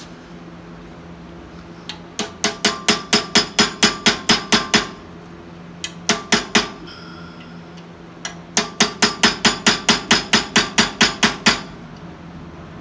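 Hand hammer striking a small punch into red-hot Damascus steel held in a vise. The blows come in two runs of quick taps, about five a second, with a pause and a few single taps between them, over a steady low hum.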